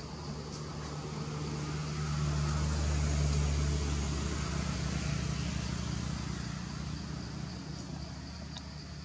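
Low engine hum of a passing motor vehicle, swelling to its loudest about three seconds in and slowly fading, over a steady high insect drone.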